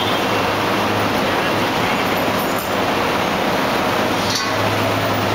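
Steady, loud machinery noise in a rotational-molding plant: a dense hiss over a low hum that drops out after about a second and returns near the end, with a light metallic clink about four and a half seconds in.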